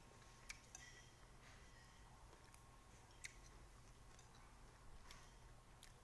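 Near silence broken by about six faint, sharp clicks, as small green limes are handled in a bowl.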